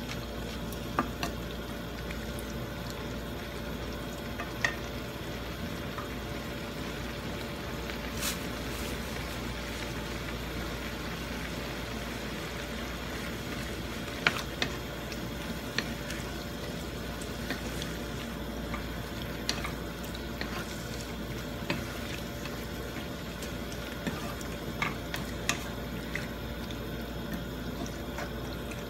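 Marinated chicken pieces sizzling steadily as they fry in a nonstick pan, cooking off their moisture, while a wooden spatula stirs them and scrapes or taps the pan every few seconds.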